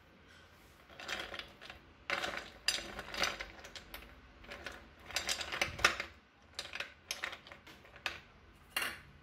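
Ice cubes clinking and knocking against each other and against a ceramic bowl as they are arranged by hand, in irregular bursts of clatter; a small glass jar is pushed in among the ice near the end.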